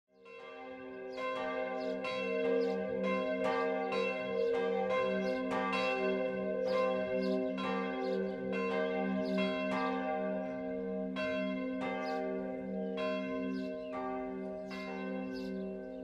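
Church bells ringing, several bells struck over and over at about two strokes a second, their hum lingering steadily underneath. The ringing fades in over the first couple of seconds.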